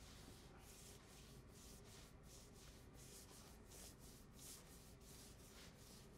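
Faint, steady strokes of a gloved hand wiping pre-stain wood conditioner across sanded oak plywood, about three swishes a second.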